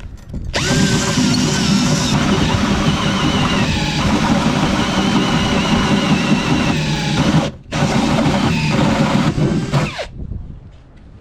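Electric drill driving a 2-inch hole saw through a boat panel, cutting steadily with a whining grind. It stops briefly about three quarters of the way through, starts again, and stops near the end as the hole is finished.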